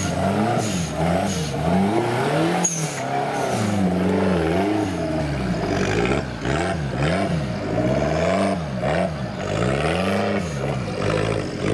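Suzuki Jimny off-road trial truck's engine revving up and down over and over in short throttle blips, about once a second. One sharp knock about three seconds in.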